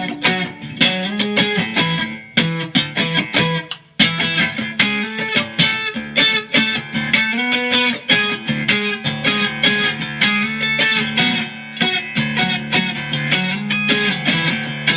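Mexican-made Fender Stratocaster electric guitar in drop D tuning, played in a quick run of picked notes and riffs, with a short break about four seconds in.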